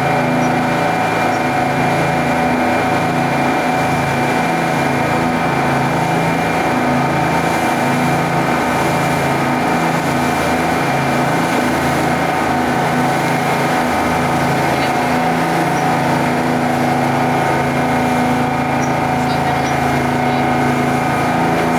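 Boat engine running at a steady speed: a constant drone whose low end wavers slowly.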